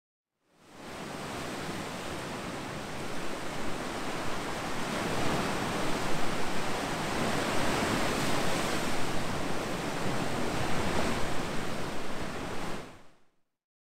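Ocean waves breaking and washing as surf, a continuous rushing noise that rises and falls in irregular surges. It fades in just after the start and fades out near the end.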